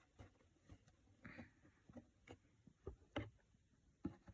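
Near silence with a few faint, scattered light taps and clicks from a homemade cardboard coin-operated vending machine being worked.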